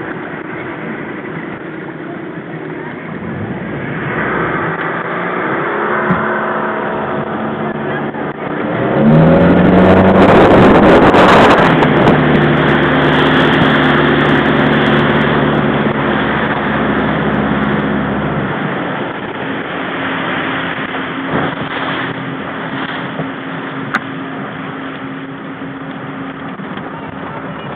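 Motorboat engine running, rising in pitch about nine seconds in as it speeds up. It is loudest for the next few seconds, then holds steady and fades, over constant wind and water noise.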